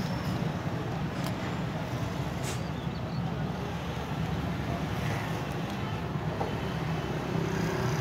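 A few faint clicks of small metal lock parts being handled and fitted together, over a steady low background rumble.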